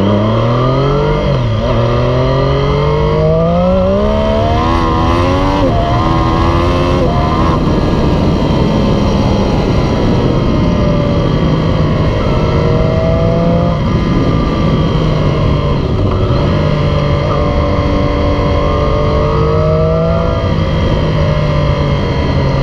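Triumph Street Triple 765 RS's 765 cc inline three-cylinder engine through a Yoshimura Alpha T exhaust, accelerating hard up through the gears: the note climbs and drops back at each upshift over the first seven seconds or so. It then cruises at a fairly steady pitch, easing down near the end as the bike slows.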